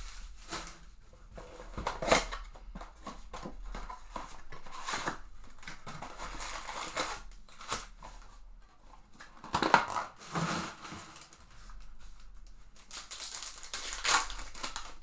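Handling and unwrapping a box of trading cards and its packs: plastic and foil wrapping crinkling and tearing, and cardboard rubbing. Several sharp snaps or knocks stand out, the loudest about two seconds in, near ten seconds and near the end.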